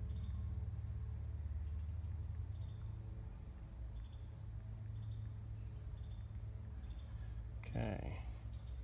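Steady, unbroken high-pitched insect chorus, like crickets chirring in summer grass, over a low steady rumble.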